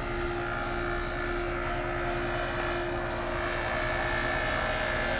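Portable 12-volt air compressor running with a steady hum while inflating tires through hoses.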